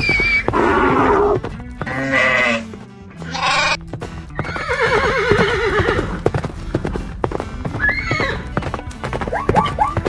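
Background music with animal-call sound effects laid over it: a run of separate calls early on, including what fits a donkey's bray, then a longer wavering call that fits a horse's whinny. In the last second a quick, regular run of short notes begins.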